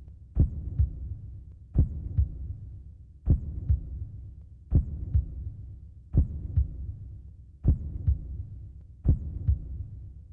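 Slow heartbeat sound effect: seven heavy low double thumps, one about every second and a half, with a low hum between beats.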